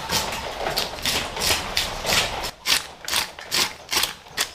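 Cleaver scraping the scales off a large carp, a rhythmic rasping of about two to three strokes a second.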